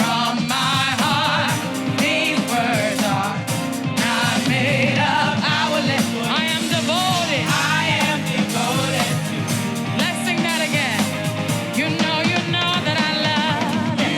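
Live gospel praise music: a singer with vibrato over a band with a drum kit keeping a steady beat.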